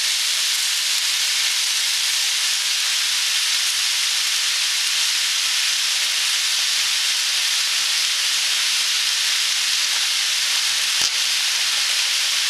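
Bok choy, garlic, ginger and spring onions sizzling in hot sesame oil in a wok: a steady, even hiss, with a single click about eleven seconds in.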